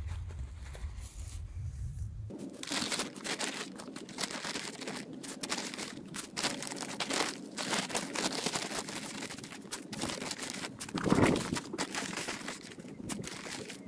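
Paper sack of sand crinkling and rustling as it is handled and tipped, with sand pouring out into a fabric sandbag; irregular crackling throughout, loudest about eleven seconds in. A low rumble fills the first two seconds before it.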